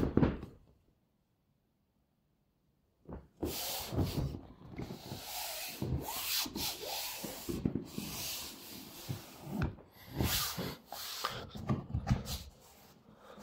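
Hands rubbing and pressing on the inflated PVC tube of a Fishman 350 inflatable boat: irregular scuffing strokes, starting about three seconds in.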